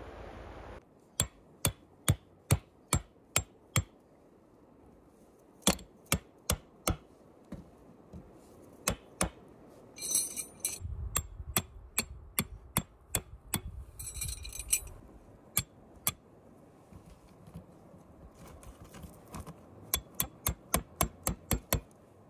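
Runs of sharp, evenly spaced knocks, about three a second, stopping and starting several times, with two brief bursts of rustling between them.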